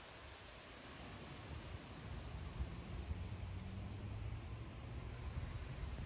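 Crickets trilling, a steady high chirr with short breaks, over a faint low rumble.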